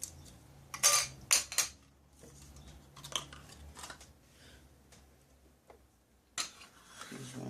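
Hard plastic puzzle cubes being handled and set down: a few sharp clacks and short rustles, the loudest cluster about a second in and a longer rustle near the end.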